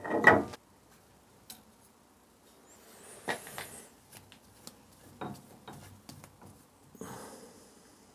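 Workshop handling noises as a rebuilt crankshaft is worked in the lathe for run-out: a loud rough knock at the start, then intermittent soft scrapes, rustles and light metal clicks.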